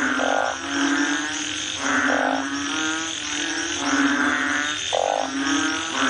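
Frogs calling: overlapping pulsed croaks that repeat roughly once a second.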